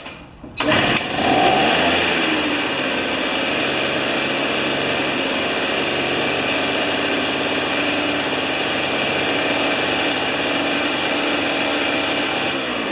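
Tecumseh two-stroke snow thrower engine catching about half a second in and running steadily, fed only by a shot of carburetor cleaner poured into the spark plug hole instead of fuel.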